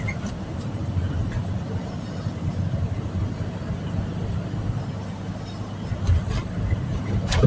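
Steady rumble of engine and road noise heard on board a moving vehicle travelling along a highway, with one sharp knock about seven seconds in.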